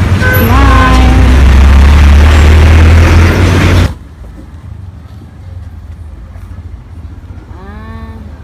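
Loud, steady engine noise of a motor vehicle running close by, with a deep hum under a broad rush. It cuts off suddenly about four seconds in, leaving quiet background with a brief call near the end.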